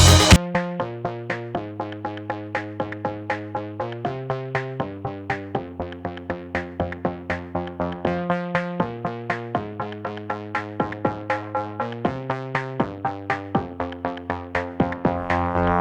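Background music: electronic track with a steady beat and sustained synthesizer chords that change about every two seconds.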